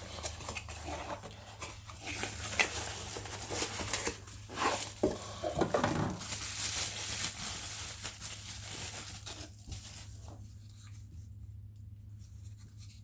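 Packaging being torn open and crinkled by hand, with irregular rustling and small clicks, dying down to faint handling after about ten seconds.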